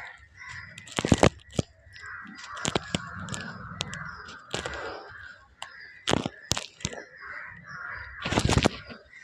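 Lumps of red soil being crumbled: a run of gritty crunching broken by sharp snapping cracks, the loudest about a second in, around six seconds and near the end.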